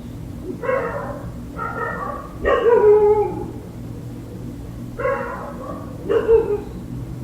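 Dogs barking outside, heard through an open window: five barks, the third, about two and a half seconds in, the longest and loudest, over a steady low room hum.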